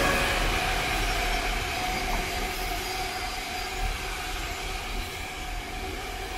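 Freight train of open-top box wagons rolling past on electrified main-line track: a steady rumble and rattle of wagon wheels on the rails with a faint steady squealing tone, gradually getting quieter.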